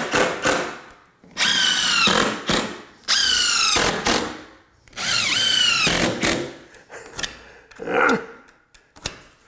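DeWalt cordless impact driver driving screws through a wooden door jamb and its shims into the framing: three runs of a little over a second each, every one a high whine from the tool.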